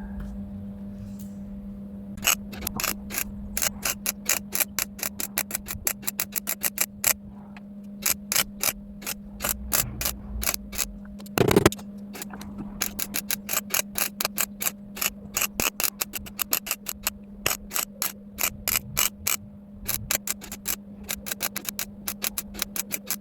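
Welder stitch-welding a steel repair patch into car bodywork in rapid short bursts, several a second, with short pauses between runs and one longer burst near the middle. A steady low hum runs underneath.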